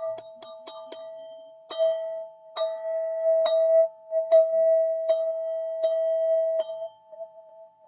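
Golden ZenTube, a metal sound-healing instrument, rings with one sustained note and bright overtones. It is struck quickly several times in the first second, then about once every 0.8 s, and the ringing fades away near the end.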